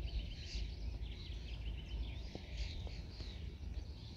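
Small birds singing and chirping in quick, repeated trills, over a low rumble of wind on the microphone.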